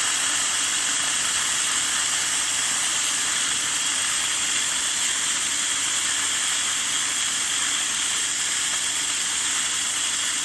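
Household vacuum cleaner running steadily with its hose held to a car's coolant header tank, pulling suction on the cooling system so no coolant spills; a steady, even hiss of rushing air.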